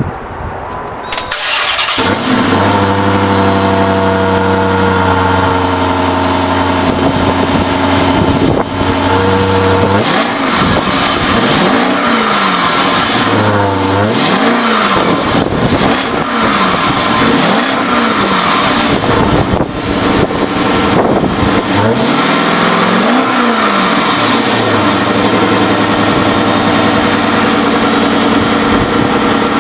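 Stock 2009 Dodge Challenger R/T's 5.7-litre Hemi V8 on its factory exhaust: cranked and started about a second in, then idling steadily. From about ten seconds it is blipped through a series of short revs, each rising and falling back, before settling to a steady idle for the last few seconds.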